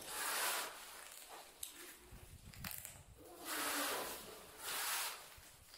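Three short hissing scrapes as a porcelain plank tile is rubbed and slid into notched tile adhesive to bed it down, one at the start and two close together near the end.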